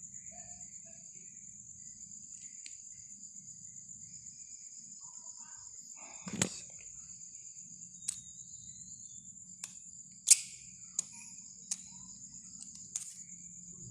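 Crickets chirring steadily in a high, continuous trill. Over it come about seven sharp clicks or knocks in the second half, the loudest about ten seconds in.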